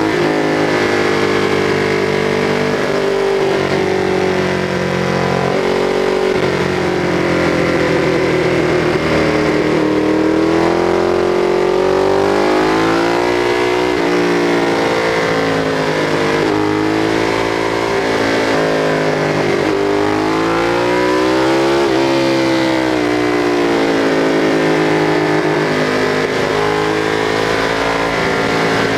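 Ducati 848's L-twin engine under way, its pitch rising and falling again and again as the bike accelerates and slows through the bends, over a steady rush of wind.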